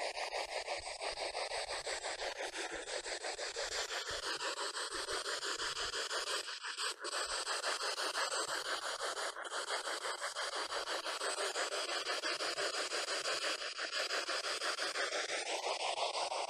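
SB11 spirit box sweeping through radio stations: a steady hiss of radio static chopped into rapid, even pulses, with faint snatches of tone breaking through now and then.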